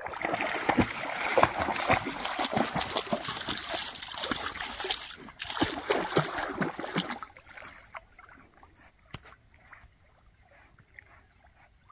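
A dog swimming in a lake, splashing and sloshing the water as it paddles. The splashing is dense and loud for about seven seconds, then drops to faint lapping.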